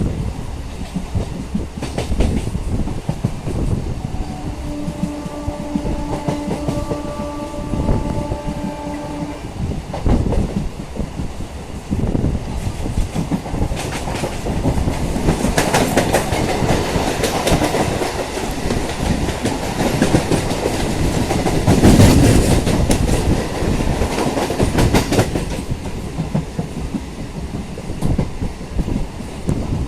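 EMU local train running along the track with steady wheel and rail-joint clatter. Its horn sounds one held note for about five seconds, starting about four seconds in, and the clatter grows louder in the second half, peaking about twenty-two seconds in.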